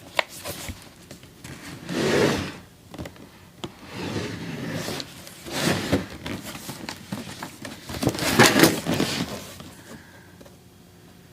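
Cardboard packaging being handled and turned over: rough scraping and rubbing in several swells, the loudest near the end, with a few sharp knocks and clicks.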